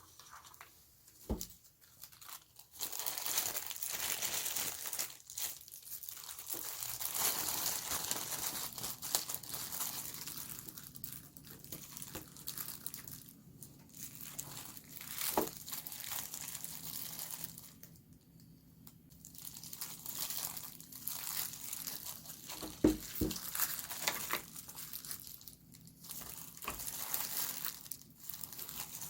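The packaging of a boxed Samsung Galaxy S21 being handled and torn open by hand: stretches of crinkling and tearing with short pauses, and a few light knocks.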